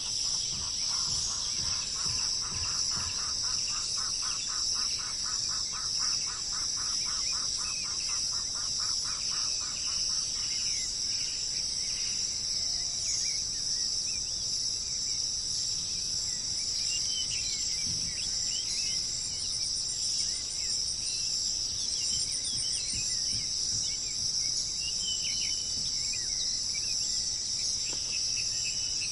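A steady, high continuous trill of crickets or bush-crickets, with birds calling over it. A fast run of repeated notes comes in the first ten seconds or so, and scattered short chirps come in the second half.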